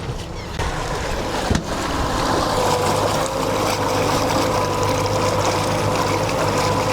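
A boat engine running steadily with the boat under way. Water and wind noise run beneath it. About two seconds in, a steady whine comes in and then holds.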